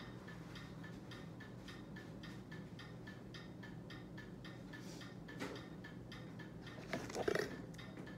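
Rapid, evenly spaced ticking over a faint steady hum, with a brief rustle or clatter near the end.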